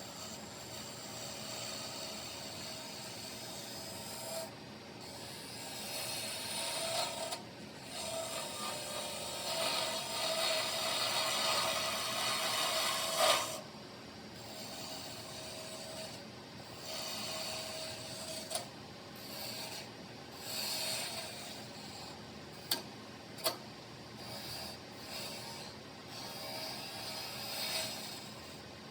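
Wood lathe spinning while a hand-held turning tool cuts the stock: a rough scraping that swells and fades in passes as the tool is worked along the piece. Two sharp clicks come a little after three-quarters of the way through.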